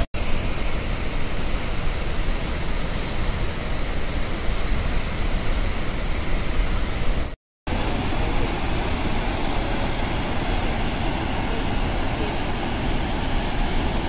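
Steady rush of the Aharbal waterfall and the white-water river below it, a loud, even noise with no let-up. It breaks off for a split second at the very start and again about halfway through.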